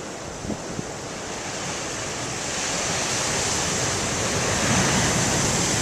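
Heavy ocean surf: big waves breaking and rushing, the roar swelling a couple of seconds in and staying loud.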